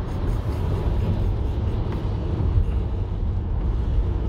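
Steady low rumble of a car's engine and tyres on a wet motorway, heard from inside the cabin.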